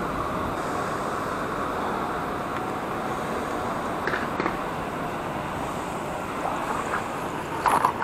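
Steady outdoor background noise, wind with a distant rumble like traffic, and a few brief knocks about four seconds in and a louder cluster near the end.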